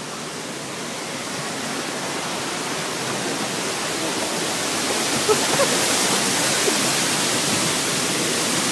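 Rushing water of a waterfall cascading down beside a water-ride boat, a steady roar of noise that grows louder as the boat draws near and is loudest from about five seconds in.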